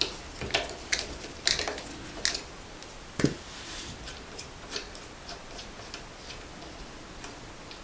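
Metal clicks and taps of an 8 mm Allen wrench being turned and reset in the crank arm bolt of an exercise bike as the bolt is loosened. There are sharp clicks about every half second at first, with a louder knock around three seconds in, then fainter scattered ticks.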